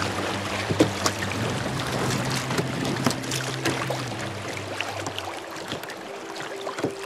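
Creek water rushing and splashing through a shallow riffle around a kayak, with sharp splashes and knocks on top. The rush eases off in the last couple of seconds.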